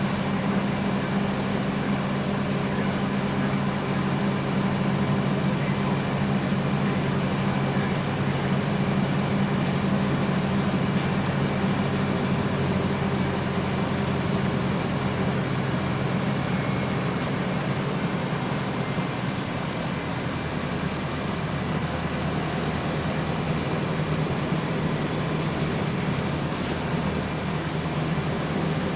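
Bus running steadily, heard from inside the passenger saloon as a constant drone with a brief single knock near the end.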